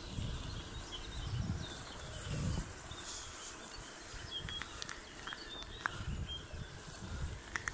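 Wind buffeting the microphone in uneven low gusts, with birds chirping and calling in the background and a few short sharp clicks about five to six seconds in.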